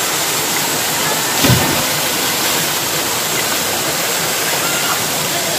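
Steady rush of river water through a rocky swimming hole, with one splash about a second and a half in as a swimmer drops into the pool.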